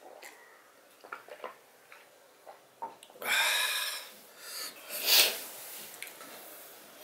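A man drinking water with small swallowing sounds, then two loud breathy exhalations: one about a second long starting about three seconds in, and a shorter, sharper one about two seconds later.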